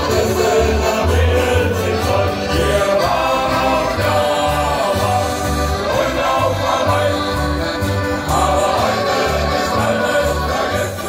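Live German sea shanty played by a shanty choir's band: accordion and strummed acoustic guitars over a steady bass beat, with male voices singing.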